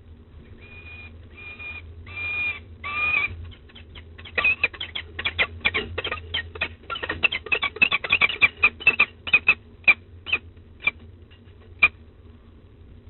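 Peregrine falcons calling as the pair contest the last of a prey item at the nest ledge. There are four drawn-out, even-pitched calls about half a second apart, then a fast run of short, sharp calls over several seconds. The run thins out and ends with a single call near the end.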